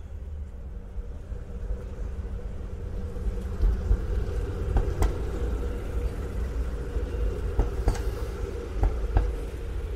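Street traffic: a steady rumble of passing cars that grows louder a few seconds in, with a few short, sharp taps of pedestrians' footsteps in the second half.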